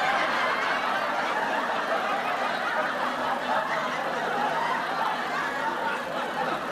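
Canned audience laughter: a steady wash of many people laughing together.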